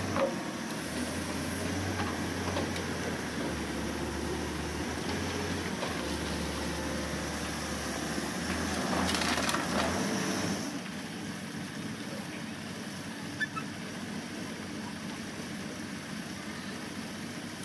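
Halla 130W wheeled excavator working while its bucket dumps a load of broken road concrete and earth into a steel tractor trolley. The rubble clatters and crunches into the trolley bed for about two seconds, around halfway through, over the steady noise of the machine.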